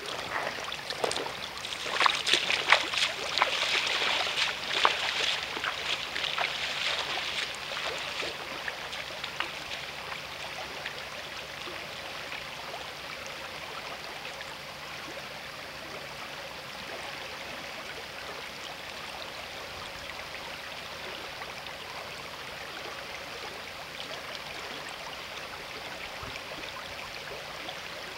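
Shallow river running over stones in a riffle, a steady rush and trickle of water. For roughly the first eight seconds there is louder, irregular splashing and crackling close to the microphone, which then settles into the even flow.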